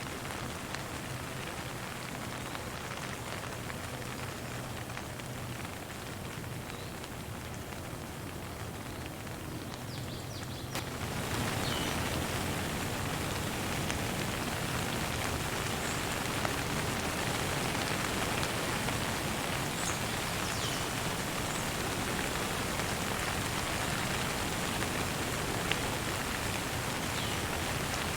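Steady rain falling, turning suddenly louder and fuller about eleven seconds in. A few faint bird chirps come through the rain.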